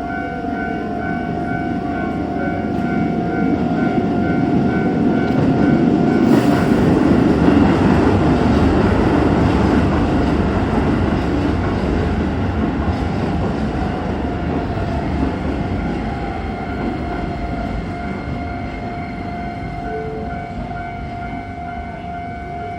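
A level-crossing warning bell clangs in a quick, steady beat throughout while a Keisei Main Line train passes over the crossing. The train's rumble swells to a peak about seven seconds in, with a brief sharp hiss as it begins, then slowly fades as the bell keeps ringing.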